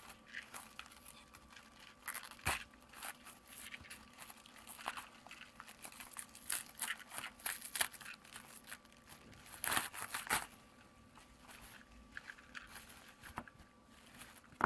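Bubble wrap and plastic packaging crinkling, rustling and tearing as a smartphone case is unwrapped by hand, in irregular crackles with the loudest bursts about ten seconds in.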